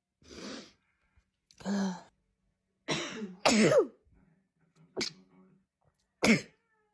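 A person sneezing in quick succession, about six sharp sneezes a second or so apart; the loudest comes about three and a half seconds in.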